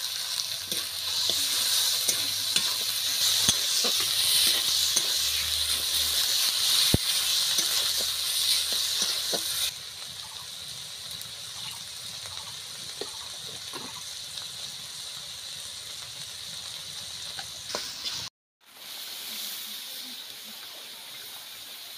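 Snail meat sizzling as it fries in hot oil and spice paste in a steel wok, with the steel spatula scraping and clicking against the pan as it is stirred. The sizzle turns quieter about ten seconds in. A short dropout comes near the end.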